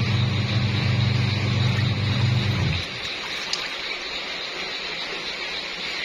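Top-loading washing machine in its wash cycle: the motor hums low while water and clothes churn in the tub. The motor cuts off a little under three seconds in, leaving only the water sloshing, the pause a washer's agitator makes between strokes.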